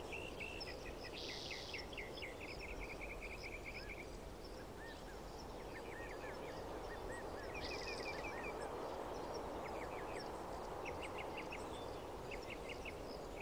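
Faint outdoor ambience: a steady background hiss with a bird's repeated chirping trills coming and going.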